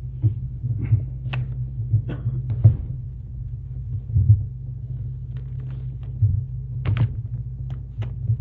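Steady low electrical hum, with a dozen or so scattered small clicks and knocks over it.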